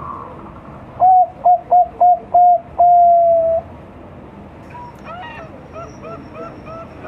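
Zebra dove (perkutut), a five-month-old Bangkok-line bird, singing its cooing song: about a second in, five short clipped coos, then one long drawn-out coo that falls slightly. Fainter bird chirps repeat in the background in the second half.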